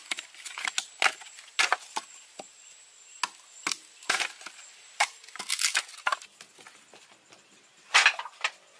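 Hand-tool work: irregular sharp knocks and short scrapes, about one or two a second, with the loudest knock near the end.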